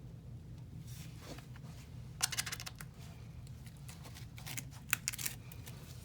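Two short clusters of rapid clicking and rattling, about two seconds in and again near five seconds, over a steady low hum.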